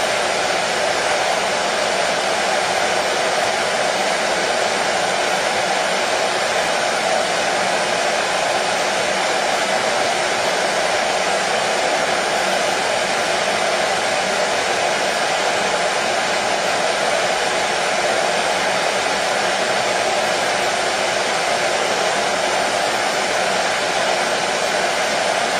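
Hair dryer running steadily, an even whooshing hiss that does not change, strongest in the middle range.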